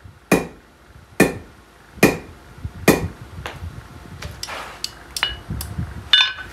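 Blacksmith's hammer striking steel while forging a nail: four heavy blows a little under a second apart, each with a short metallic ring, then lighter taps and clinks. A ringing strike on the anvil comes near the end.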